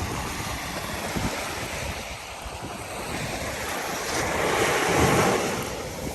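Sea surf washing onto a beach, one wave swelling to its loudest about five seconds in and then falling away, with wind on the microphone.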